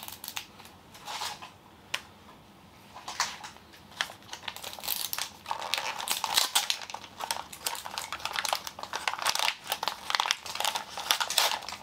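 Thin plastic wrapping crinkling and tearing as a miniature toy is unwrapped from its blind-ball packaging: a few light clicks at first, then steady crinkling from about halfway.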